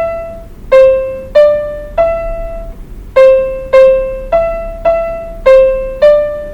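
Electronic keyboard in a piano voice playing a slow, simple melody one note at a time on just three keys (C, D and E). About eleven notes, each struck and left to fade, with a short pause near the middle.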